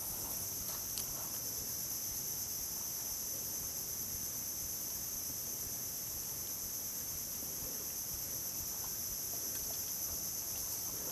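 Steady chorus of insects: a continuous high shrill in two pitches that holds level throughout.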